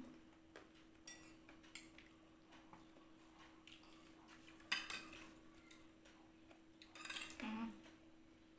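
Faint clinks and scrapes of metal spoons against soup bowls: a handful of light taps, with one sharper clink about halfway through, over a steady low hum.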